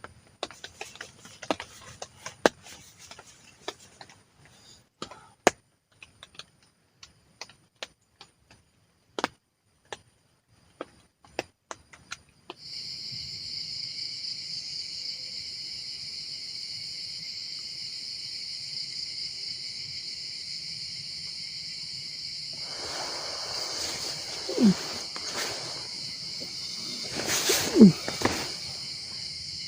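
Scattered small clicks and knocks, then, about twelve seconds in, a steady high-pitched insect chorus starts suddenly and keeps on. Near the end two brief, louder sounds, each falling in pitch, stand out over the insects.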